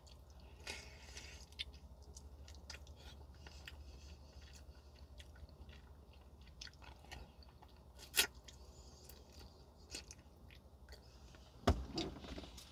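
A person chewing a spoonful of vegetable soup close to the microphone, with soft wet mouth clicks. One sharper click comes about eight seconds in, and a knock near the end.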